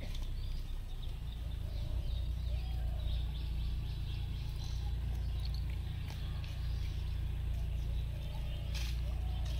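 Pond-side outdoor ambience: a steady low rumble with small birds chirping now and then, and a couple of faint clicks near the end.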